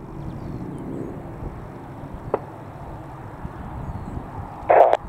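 Distant Royal Navy AgustaWestland Wildcat HMA2 helicopter in display flight: a steady low rumble of rotor and engines. There is a single click about two seconds in and a short loud burst near the end.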